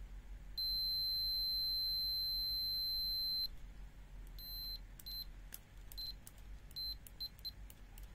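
Hioki 3244 card multimeter's continuity beeper sounding: one steady high-pitched beep lasting about three seconds, then a run of short, irregular beeps. The broken beeps come from the test leads making poor, flickering contact.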